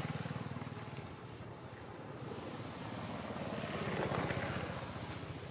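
A motor engine running, a low steady drone that swells to a peak about four seconds in and then fades.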